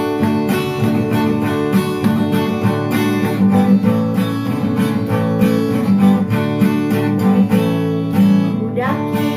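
Acoustic guitar strummed in a steady rhythm: the instrumental introduction to a children's worship song, with no singing yet.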